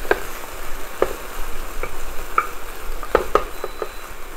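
Garlic and vinegar sauce sizzling as it reduces towards a syrupy glaze in a small non-stick skillet, stirred with a wooden spatula that scrapes and taps the pan in short irregular strokes over a steady hiss.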